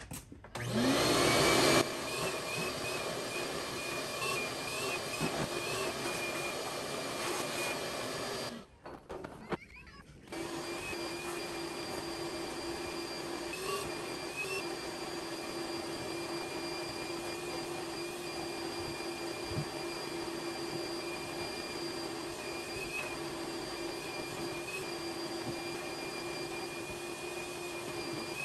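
Vacuum cleaner switched on, its motor whining up to speed, then running steadily. It cuts off for a moment about nine seconds in and then runs steadily again.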